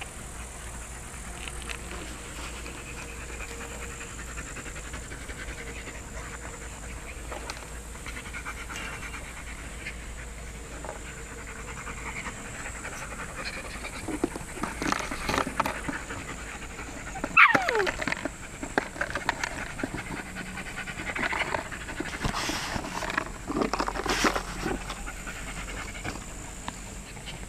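American Akita and Samoyed puppies playing and panting, with scuffling that gets busier in the second half. About two-thirds of the way through comes one short cry that falls sharply in pitch.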